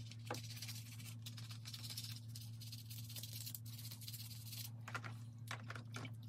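Soft swishing and rubbing as a small metal model-train truck is scrubbed by hand in a tub of soapy water, with a few light splashes and drips about five to six seconds in. A steady low hum sits underneath.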